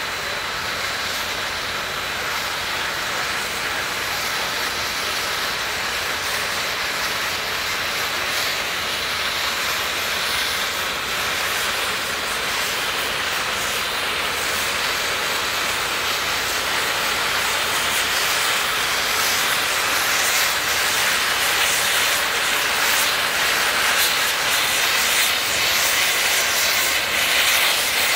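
Union Pacific Big Boy 4014, a 4-8-8-4 articulated steam locomotive, blowing off steam low around its cylinders and running gear: a steady loud hiss that slowly grows louder.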